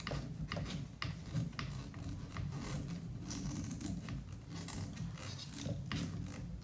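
Hands handling the plastic parts and wiring of a Traxxas Slayer Pro RC truck chassis: scattered small clicks, ticks and rustles over a steady low hum.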